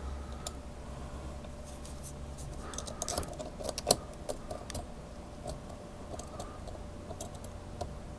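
Lock picks working in the keyway of a small Kryptonite pin-tumbler padlock: scattered light metallic clicks and faint scraping as the pins are set, with a brief flurry of sharper clicks a few seconds in.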